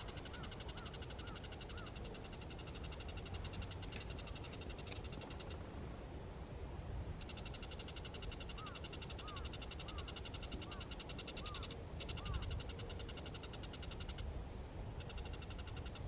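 Bull-headed shrike calling: a high, rapid trill held for several seconds at a time, breaking off and starting again three times, with short soft lower notes repeated about twice a second near the start and again around the middle.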